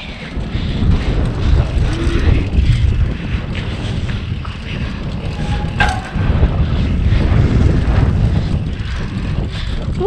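Mountain bike descending a dirt forest trail at speed: wind buffeting the camera microphone and the tyres rolling over the dirt make a loud, steady low rumble, with one brief sharp sound about halfway through.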